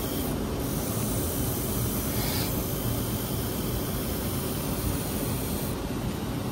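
Belt linisher running, its abrasive belt grinding a bare steel shaft pressed against the contact wheel: the first linish that takes the steel down to remove pitting. A steady, even grinding noise.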